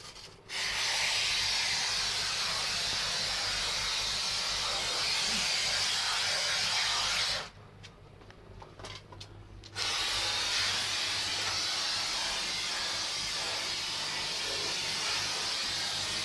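Two-part spray foam gun spraying insulation foam in a steady hiss, which stops about seven seconds in and starts again about two seconds later.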